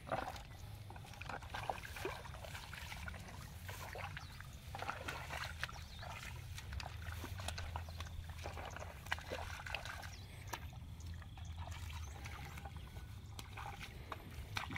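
Footsteps wading through shallow water and mud, with irregular small splashes, sloshes and squelches, over a steady low rumble.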